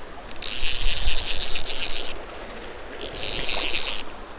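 Fly reel's clicker ratcheting rapidly while a hooked trout is played, in two spells about half a second apart.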